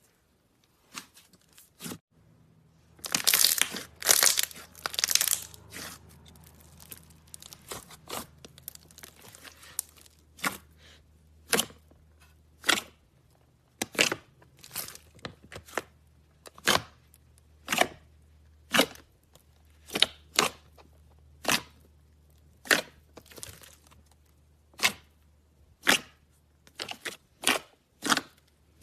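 Slime being handled: a few seconds of loud crackling early on, then a long run of sharp pops, roughly one a second.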